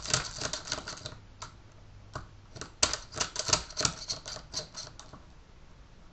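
Airsoft BBs being pushed from a speed loader into a plastic shotgun shell magazine: rapid runs of small clicks. One run stops about a second in and another runs from about three to five seconds in.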